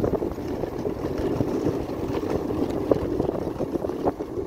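Small motor scooter engine running while riding, with a steady, uneven low rumble.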